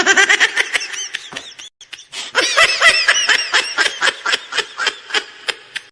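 A laughing sound effect: quick, high-pitched giggling pulses, about five or six a second, in two runs separated by a short pause, the second run fading out.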